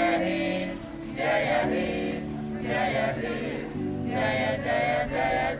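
A group of voices singing together in chorus over held low chords, in short repeated phrases about a second apart.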